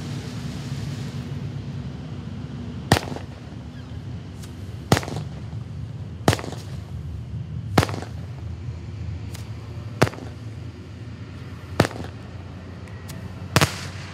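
Black Cat 'Garden in Spring' consumer firework going off: a hiss for the first second or so, then a series of seven sharp reports spaced about one and a half to two seconds apart as its shots burst in the air, with a couple of fainter pops between them.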